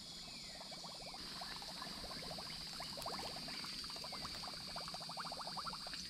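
Steady, high-pitched drone of insects in the surrounding brush, with runs of quick, light ticking and rustling over it.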